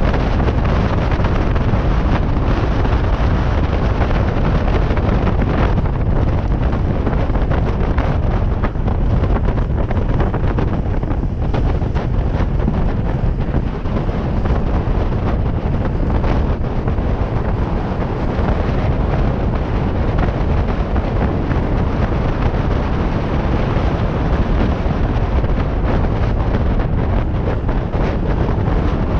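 Wind rushing hard over the microphone at downhill longboarding speed, with the steady rumble of longboard wheels rolling on rough asphalt underneath.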